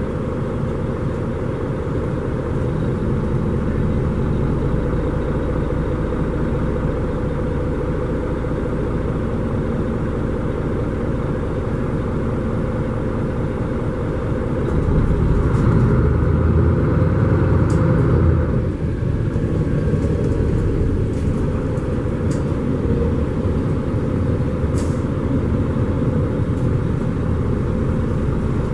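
Steady running noise of a Mercedes-Benz Conecto G articulated bus heard from inside its cabin. About halfway through, a louder low rumble swells for about four seconds, then settles back.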